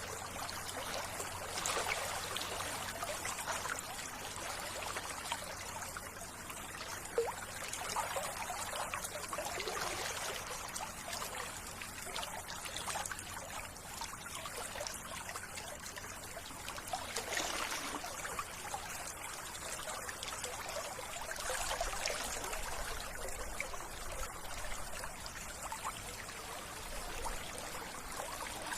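Running water trickling and splashing steadily, with small surges.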